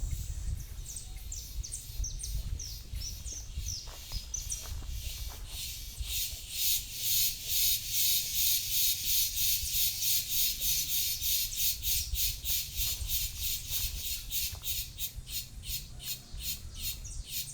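Birds calling outdoors: scattered short, high chirps at first, then from about six seconds in a fast, even run of sharp calls, about four a second, with a low rumble underneath.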